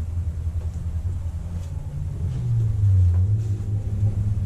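A steady low rumble, with a few faint knocks from handling.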